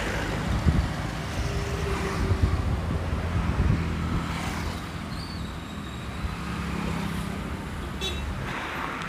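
Road traffic passing close by: vehicle engines running in a steady low hum, with a few short knocks in the first few seconds.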